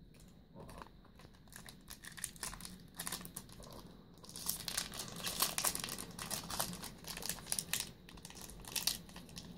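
Foil Yu-Gi-Oh booster pack wrapper crinkling in the hands as it is picked up and torn open at the top. Faint rustles at first, then dense, sharp crackling from about four seconds in.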